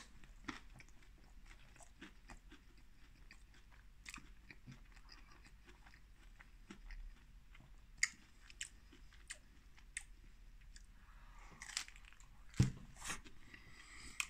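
A person chewing a big mouthful of pizza, with scattered small mouth clicks. A single sharp knock stands out near the end.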